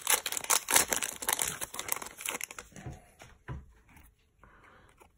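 Shiny foil wrapper of a Pokémon booster pack crinkling and tearing as it is ripped open, a dense crackle for about three seconds, then a few fainter rustles as the cards are handled.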